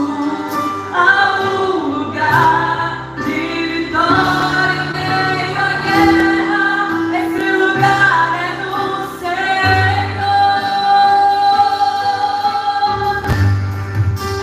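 Live gospel worship song, with voices singing over a band and held bass notes underneath.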